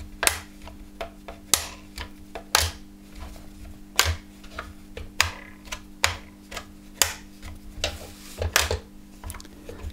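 Small neodymium magnets clicking and snapping against the plastic rings of a homemade magnet motor's rotor as each rotor magnet's polarity is checked: a string of sharp clicks at irregular intervals, one or two a second.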